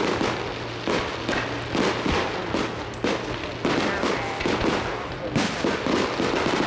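Fireworks display going off: a rapid, continuous series of bangs and crackling from bursting aerial fireworks.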